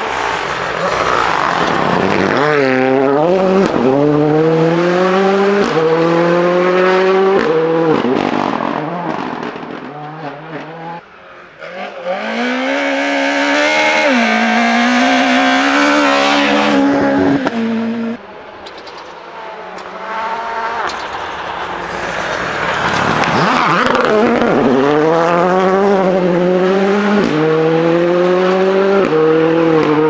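Rally cars at full throttle, one after another, the engine note climbing through each gear and dropping sharply at every gear change. Three runs are heard, the second cut off suddenly, with short quieter gaps between them.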